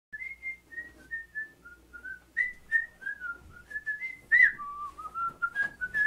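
A man whistling a tune: a string of short, clear notes stepping up and down, with a few faint knocks as he moves about.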